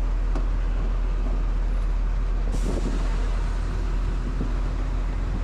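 Street traffic: a steady low rumble of passing vehicles, with a short hiss about two and a half seconds in.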